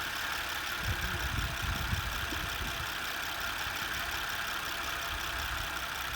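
2008 Honda Accord's 3.5-litre V6 idling steadily, a constant hiss over an uneven low rumble. This is the engine noise whose cause the owner is asking about, suspecting worn engine mounts; the hydraulic belt tensioner has already been replaced.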